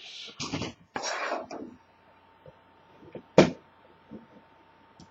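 Handling noise: a second or so of rustling, then quiet, then a single sharp knock about three and a half seconds in.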